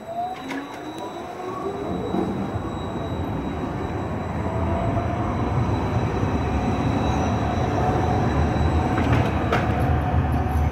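City tram passing close by on street rails. A rising whine comes near the start, then a rumble that grows steadily louder, with a thin steady tone running over it.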